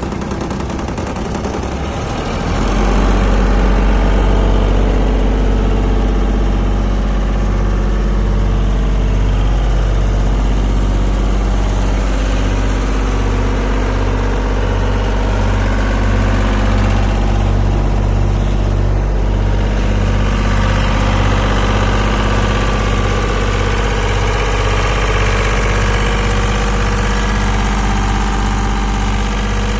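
Atlas Copco portable engine-driven air compressor starting up: its engine catches about two and a half seconds in, gets louder, and settles into steady running with an even low pulse.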